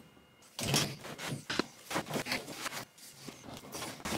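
Gloved hands working inside a Samsung top-load washer's cabinet at the suspension rod corner: a string of irregular rubs, scrapes and light knocks on metal and plastic.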